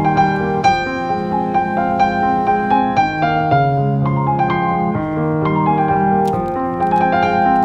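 Background piano music: a gentle piece of single notes and chords played in an unbroken flow.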